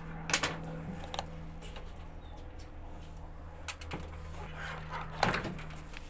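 Scattered sharp knocks and clicks of hard objects being handled, the loudest about five seconds in, over a steady low hum.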